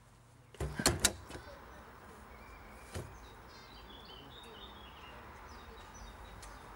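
Two sharp knocks close together about a second in, and a softer one near three seconds, over steady street ambience with faint birds chirping.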